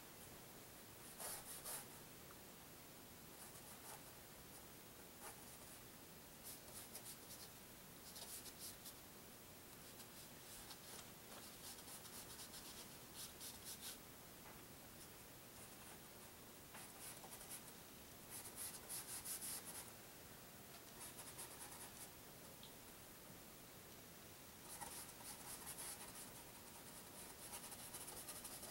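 Faint, scratchy strokes of a paintbrush on canvas, coming in short bouts of a second or two with pauses between.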